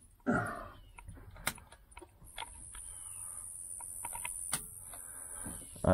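Scattered sharp clicks of switches and the steering-column stalk being worked on a 1978 Chevy Nova's dash, as the headlights and high beams are switched on. A short louder noise comes just after the start.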